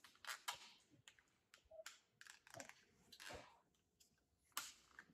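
Faint, scattered clicks and soft rustles of a small plastic clip-on ring light and webcam assembly and its cable being handled.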